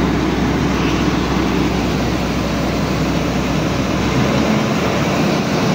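Laverda 3650 combine harvester running steadily at close range while its unloading auger pours threshed rice into a trailer. The deepest part of the rumble drops away about four seconds in.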